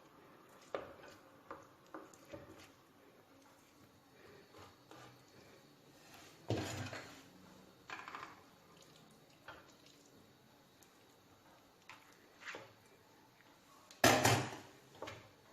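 Metal utensils scraping and knocking against a baking dish as a piece of baked lasagna is cut and lifted out, in scattered strokes with the loudest scrape near the end.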